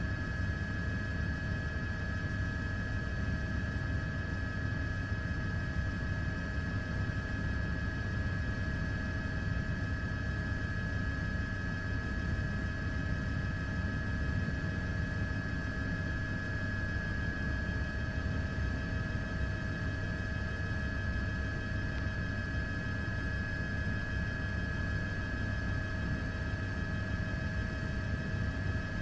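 Steady drone of an aircraft in flight: a deep rumble under a constant high whine, without change.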